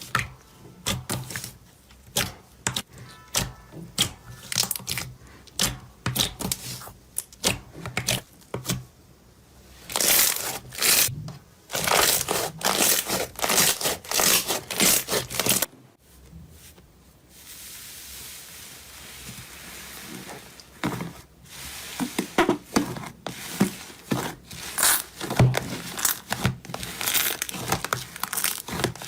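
Slime being squeezed, poked and stretched by hand, giving dense irregular crackles and sticky pops. Partway through it breaks off suddenly, with a few seconds of softer steady hissing before the crackling resumes.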